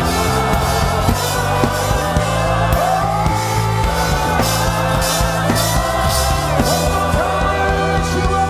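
Live gospel worship music: a voice singing long held notes over a full band with steady drums and bass.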